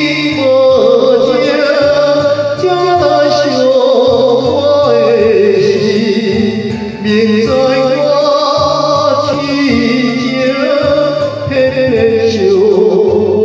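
A voice sings a Taiwanese Hokkien ballad with heavy vibrato over a backing track with a steady, repeating bass line.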